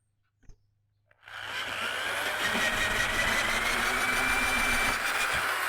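Power drill running a 2 1/8-inch hole saw through wood, starting about a second in and running steadily with a high motor whine that rises slightly.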